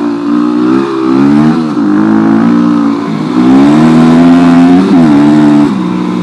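Motorcycle engine pulling on the trail, its pitch rising and falling with the throttle, briefly dipping about a second and a half in and again near five seconds. It runs loudest in the middle stretch, then settles lower and steadier near the end.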